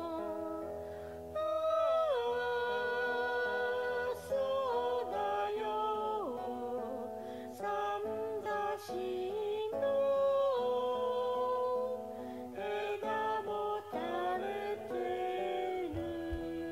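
A recorded song played back in the room: a single voice singing slowly, holding long notes and gliding down between them.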